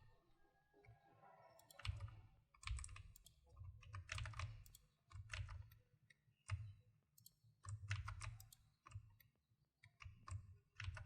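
Faint computer keyboard and mouse clicks in short clusters about every second or so, each with a soft low thud, as shortcut keys are pressed.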